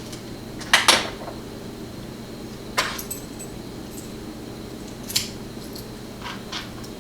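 Small metal parts and tools clinking against each other as a pin-tumbler lock is taken apart by hand: a loud double clink about a second in, single clinks near three and five seconds, and two softer ones near the end, over a steady low hum.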